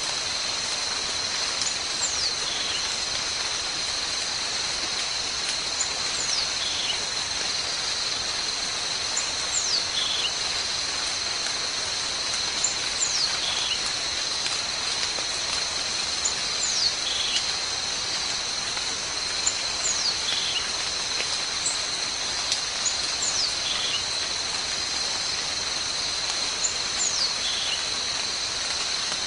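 Forest ambience: a steady high-pitched insect drone with a bird repeating a short falling whistle about every three to four seconds.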